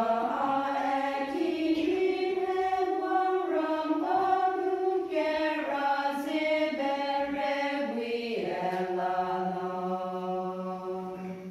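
Women's choir singing a hymn in long held notes, several voices together, with the phrase ending near the close.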